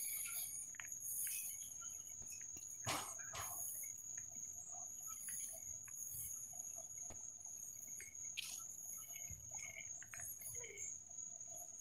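Crickets and other night insects trilling in a steady, high, even tone, with scattered faint clicks and one sharper knock about three seconds in.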